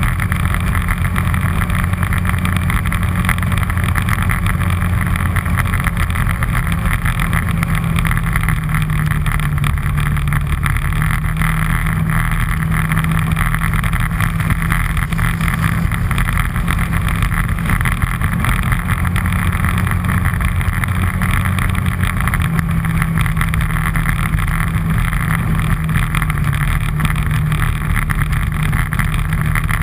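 All-terrain vehicle engine running steadily while under way, heard from on board. The engine note shifts slightly about eight seconds in.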